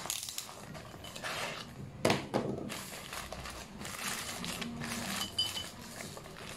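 A plastic mailer bag rustling and crinkling as it is slit open with a box cutter and a bubble-wrapped parcel is pulled out, with two sharp clacks about two seconds in.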